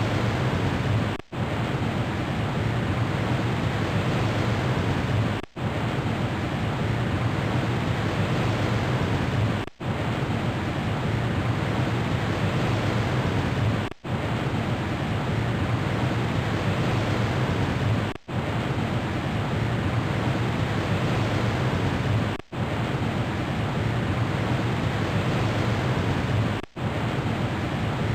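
Ocean-surf sound effect: an even rushing hiss over a low rumble, with no rise and fall of separate waves. It cuts out briefly about every four seconds, where a short loop restarts.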